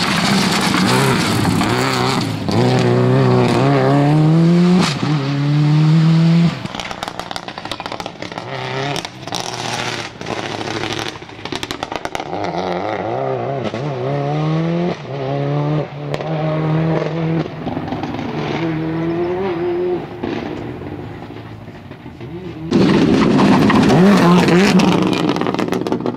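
Subaru Impreza rally car's turbocharged flat-four engine accelerating hard through the gears, its pitch climbing and then dropping at each upshift, with sharp cracks between shifts. The car fades as it pulls away, then is suddenly loud and close again near the end.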